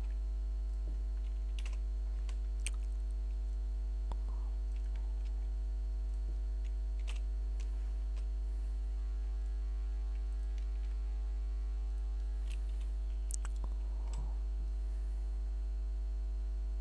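Steady electrical mains hum on the recording, with scattered computer keyboard key clicks, about ten sparse taps, as code is pasted and edited.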